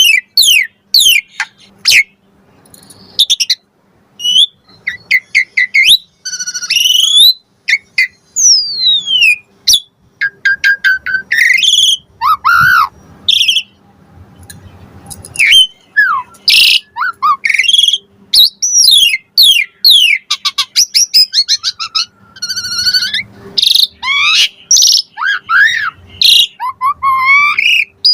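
Asian pied starling (jalak suren) singing a fast, varied song of loud whistles, rising and falling glides and chirps, broken by short pauses. The song is full of the varied borrowed phrases (isian) that keepers prize.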